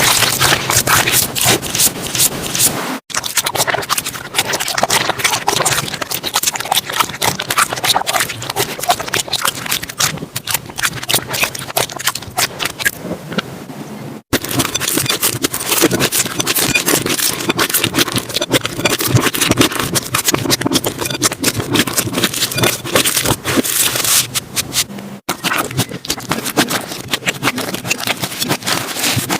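Slime being squeezed, poked and stretched by hand, giving a dense run of sticky clicks, crackles and small pops. The sound breaks off for an instant about 3, 14 and 25 seconds in.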